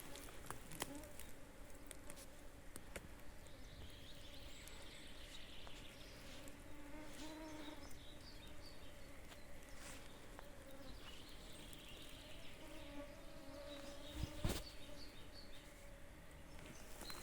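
A flying insect buzzing close by with a steady, slightly wavering drone, with a few faint chirps and a sharp click about 14 seconds in.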